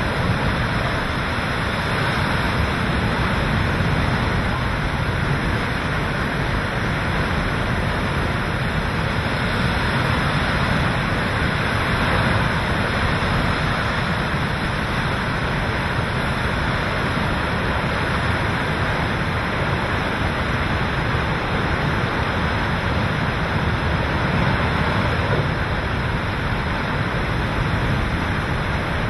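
Hurricane-force wind and driving rain: a loud, steady roar that swells slightly in gusts.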